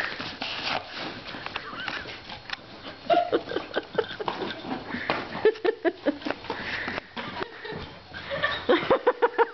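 A Labrador–beagle mix dog making many short excited vocal sounds while it plays rough with a paper plate, with a fast run of them near the end.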